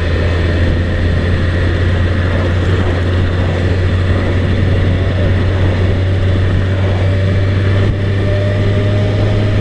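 Motorcycle engine running steadily under way, with wind and road noise on the rider's microphone. The engine note steps up slightly after a brief dip about eight seconds in.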